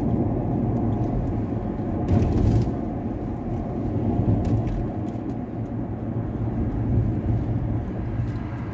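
Steady road and engine noise inside a moving car's cabin, a low rumble with a brief swell of hiss about two seconds in.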